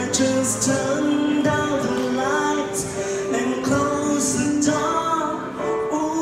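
A man singing a slow pop ballad while accompanying himself on a Roland FP-7F digital piano, the voice holding long notes over sustained piano chords.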